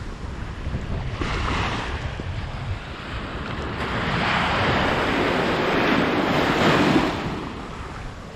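Baltic Sea surf breaking and washing over the shallows, surging twice, with steady wind rumble on the microphone.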